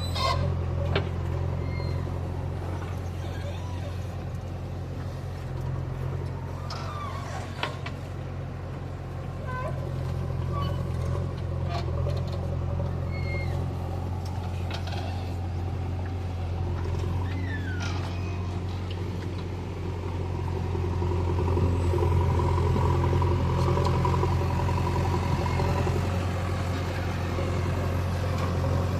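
JCB 3DX backhoe loader's diesel engine running with a steady low drone, getting louder about twenty seconds in, with scattered knocks and clanks.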